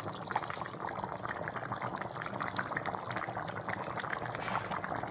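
Chicken curry bubbling at a boil in a pan: a steady crackle of many small pops as bubbles burst through the thick gravy.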